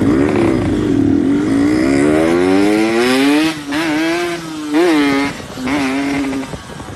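Yamaha RX King two-stroke single-cylinder motorcycle engine, carburettor set rich, pulling under acceleration with its pitch climbing steadily for a couple of seconds. It then dips and gives two short throttle blips, the pitch jumping up and falling back.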